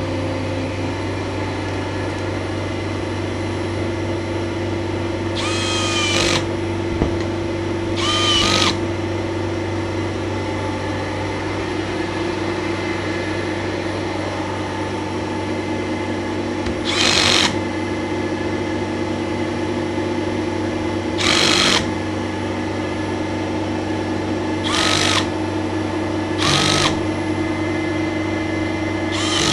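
Kärcher MV6P Premium wet-and-dry vacuum cleaner running with a steady drone. Short hissing whistles of under a second break in about seven times, irregularly spaced.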